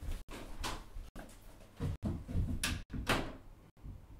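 A person getting up and moving about, with a string of knocks, rustles and door-like thuds; the loudest thud comes about three seconds in.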